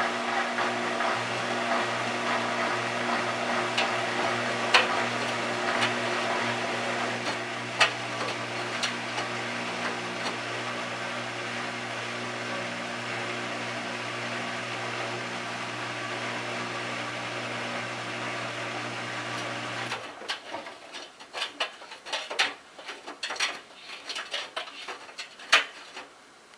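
Miele Touchtronic W3033 front-loading washer tumbling a delicate load in water: a steady motor hum with sloshing. The motor stops suddenly about twenty seconds in, and a few irregular sloshes and clicks follow.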